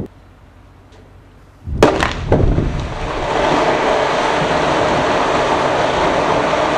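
Quarry production blast going off: after a short lull, a sharp report about two seconds in, with two more bangs close behind it, then a steady rumble as the broken rock slides down the quarry face.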